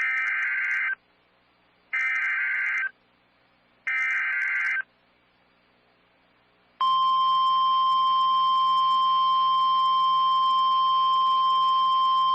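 Three EAS (SAME) header data bursts, each about a second long and two seconds apart. About two seconds after the last one, a loud, steady single-pitched alert tone starts. This is the NOAA Weather Radio 1050 Hz warning alarm tone, which announces an incoming severe thunderstorm warning.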